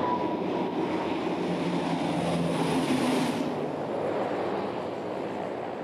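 Turboprop engines of an Armstrong Whitworth Argosy transport running steadily, with a thin whine in the first second; the higher hiss eases off about three and a half seconds in.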